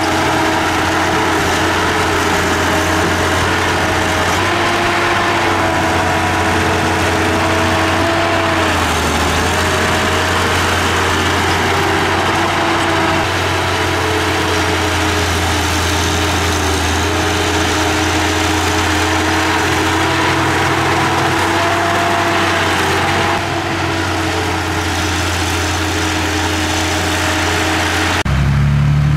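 Diesel engine of a Komatsu D31P crawler dozer running steadily under work, its pitch drifting slightly up and down. Near the end the sound changes abruptly to a deeper engine note.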